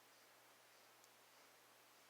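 Near silence: faint room tone with a steady low hum and one tiny tick about a second in.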